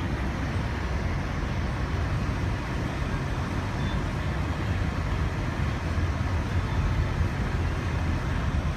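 Steady low rumble of a car driving, engine and tyre noise with no sharp events.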